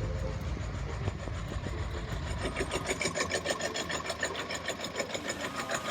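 Heavy truck engine running. A rapid, even mechanical clatter joins it about halfway through, and the sound cuts off abruptly at the end.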